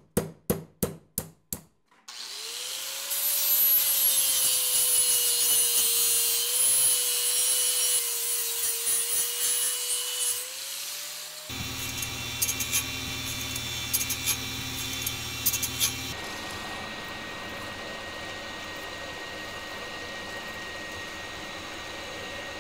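Quick hammer blows on a steel strip over an anvil, about four a second, for the first two seconds. Then comes a run of machine sounds as steel is worked: a loud power tool cutting metal with a steady whine, a surface grinder's wheel on a steel part, and at the end a milling machine's end mill cutting steel with a steady hum.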